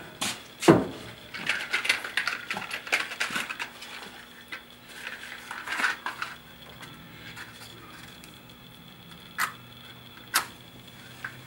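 Sharp metallic clicks and clinks, densely packed over the first four seconds or so, then a few single clicks near the end, while the gas test flame on a closed-cup flash point tester is being lit.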